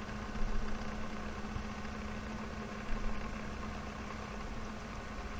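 A steady low hum with an even hiss, a constant background drone, with faint soft bumps about half a second and three seconds in.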